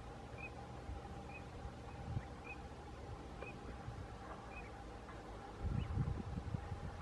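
Eurasian teal drakes giving short, high whistled 'krick' calls about once a second, faint over a low wind rumble. Wind buffets the microphone near the end.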